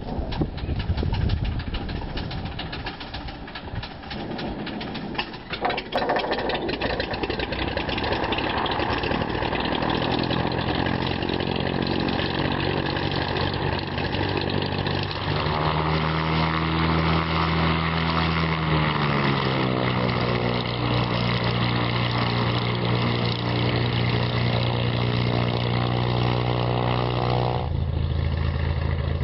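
Cessna 207's Continental 520 six-cylinder piston engine starting: after a few seconds of uneven sound it catches about six seconds in and settles into a steady run, with a couple of shifts in pitch along the way. Near the end the sound changes abruptly to the same engine heard from farther off as the plane rolls on the runway.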